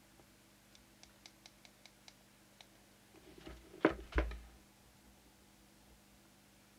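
About ten faint, quick clicks of the up/down channel button on a CB radio's hand microphone, stepping the channel up. Two louder knocks follow about four seconds in.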